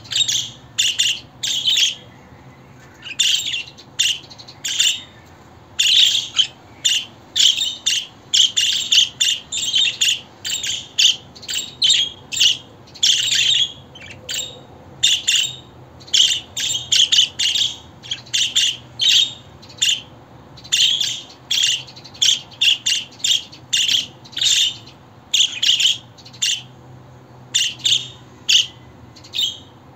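Budgerigars chirping and chattering: short, rapid, high calls in quick clusters with brief pauses.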